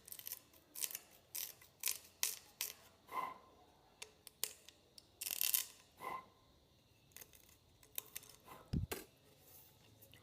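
Knife scraping and carving a dry bamboo flute tube in short, irregular strokes, a few with a faint ring, and one low thump near the end.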